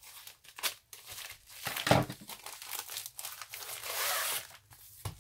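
Plastic packaging crinkling and rustling in the hands as a diamond-painting kit's package is opened, with scattered crackles and a louder burst about two seconds in.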